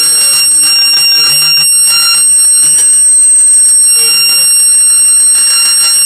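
Fire alarm sounder going off with a steady, loud, high-pitched tone, triggered by smoke at a detector on the fire alarm panel.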